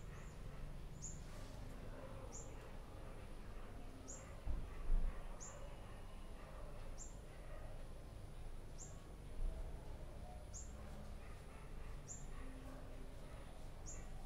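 A bird calling with a single short, high, falling chirp, repeated at an even pace about every one and a half to two seconds. A few soft low bumps from the lens being handled come about a third of the way in and again past the middle.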